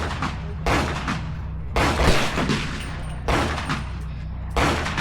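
Rifle fired shot by shot, about five rounds roughly a second apart at an uneven pace, each crack followed by a long echoing tail.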